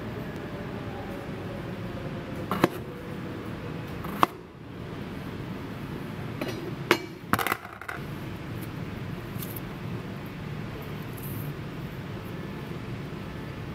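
Kitchen knife cutting king oyster mushrooms on a plastic cutting board: four sharp knocks of the blade meeting the board within the first eight seconds, over a steady room hiss. Quieter handling follows as the pieces are torn into strips by hand.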